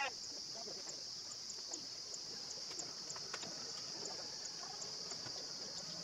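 A steady high-pitched insect drone with faint regular ticks, and one short falling bird call right at the start.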